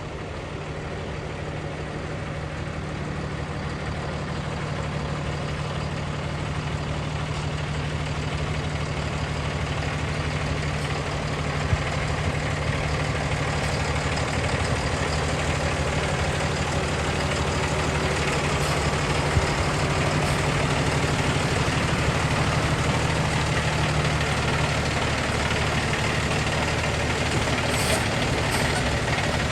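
Concrete mixer truck's diesel engine running steadily, slowly growing louder as it comes closer. There are a few short high hisses, most of them near the end.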